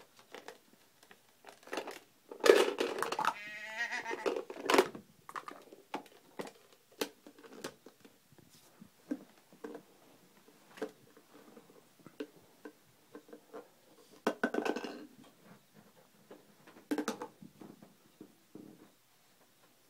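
Hard plastic shapes knocking and clattering against a plastic shape-sorter bucket and its lid as a baby handles them, in scattered taps and thunks, with the baby's voice breaking in a few times, loudest about two and a half seconds in.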